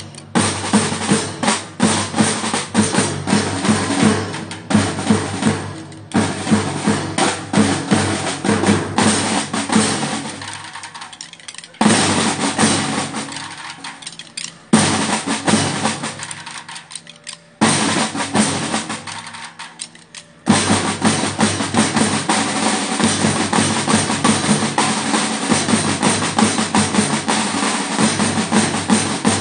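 A marching drum band of snare drums and a bass drum plays a rhythmic cadence. About halfway through come three sudden loud accents, each fading off a few seconds later. Then the drums settle into a dense, steady roll.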